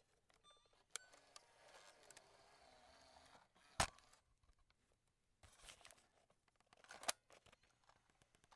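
Cassette player's eject mechanism and the plastic cassette being handled: a few sharp mechanical clicks, the loudest about four and seven seconds in, with soft handling rustle between them.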